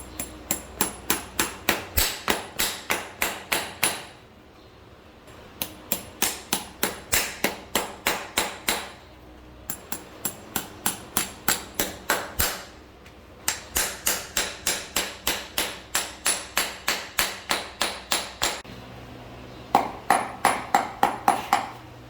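Hammer striking a steel horseshoe on an anvil while forging two side clips, in quick runs of about four ringing blows a second broken by short pauses.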